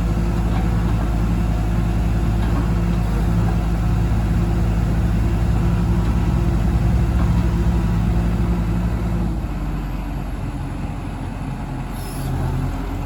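Diesel engine of a New Holland MH3.6 mobile excavator running steadily. About three-quarters of the way through, its pitch and level drop, and a brief sharp sound comes near the end.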